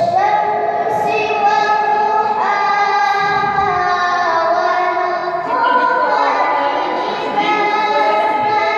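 Teenage girl reciting the Quran in melodic tilawah style into a microphone, in a high voice. She holds long ornamented notes that slide slowly downward, then jumps to a higher pitch about two-thirds of the way through.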